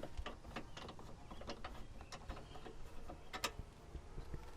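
Hand ratchet with a 10 mm socket clicking in short irregular runs as a bolt is worked loose, with one sharper click about three and a half seconds in.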